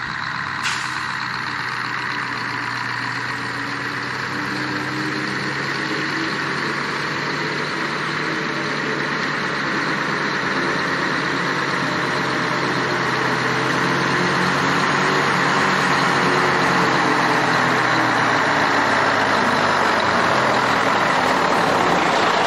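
Scania V8 diesel engine of a converted Steiger Cougar tractor running steadily as the tractor drives across a field, growing gradually louder as it approaches.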